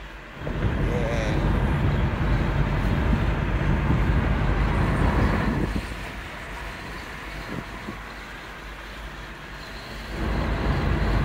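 A car in motion heard from inside the cabin: a low road and engine rumble that swells about half a second in, eases off a little before the middle, and swells again near the end.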